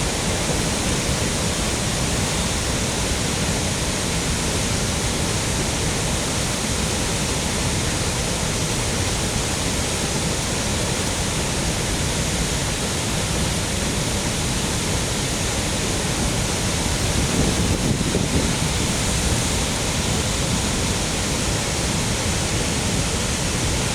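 Several waterfall cascades on a river running full, a steady, unbroken rush of falling water.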